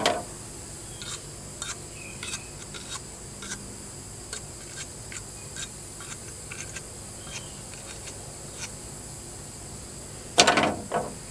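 Scattered light metal clicks and clinks as a John Deere 400's replacement steering spindle and its fittings are handled and fitted together by hand. There is a sharp knock at the start and a cluster of louder metal knocks about ten seconds in.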